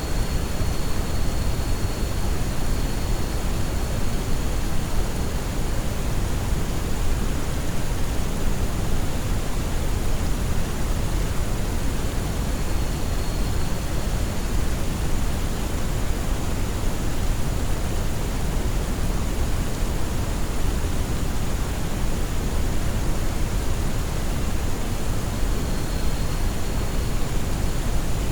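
Steady sleep-track noise: an even, unchanging hiss weighted toward the low end, giving a deep rushing sound. A faint thin high tone comes and goes three times.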